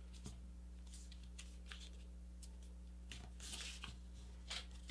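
Faint rustling and crinkling of a sheet of printer paper being creased and folded by hand, with soft scrapes scattered through, over a steady low hum.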